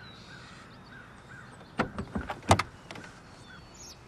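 A quick run of sharp knocks and clunks about two seconds in, the last one the loudest, with birds chirping faintly throughout.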